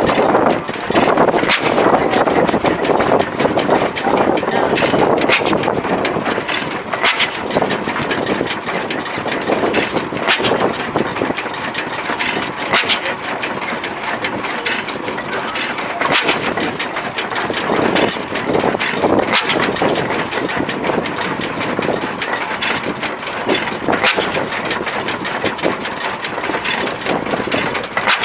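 Machinery engines running, with irregular sharp pops and knocks over a steady noisy rumble.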